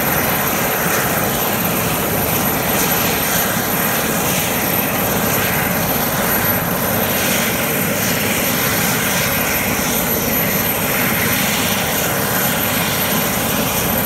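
Large heavy-lift helicopter idling on the ground with its rotors turning: a steady rush of turbine and rotor noise with a thin high whine held throughout.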